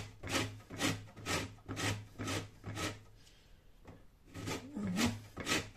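A whole lemon rubbed up and down on a stainless-steel box grater, zesting the rind: rasping strokes about two a second, stopping for about a second and a half midway, then starting again.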